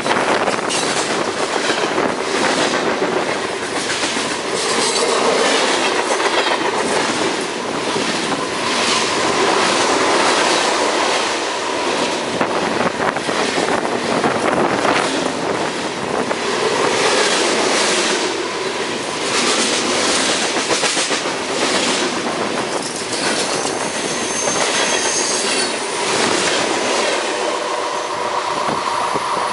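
Freight train cars rolling past on the rails, their wheels clacking over the rail joints, with thin high-pitched wheel squeal now and then, most noticeable in the second half.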